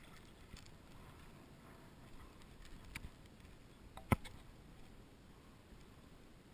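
Light lapping and splashing of shallow seawater around a wading angler's legs, with a sharp knock about four seconds in and a smaller click a second before it.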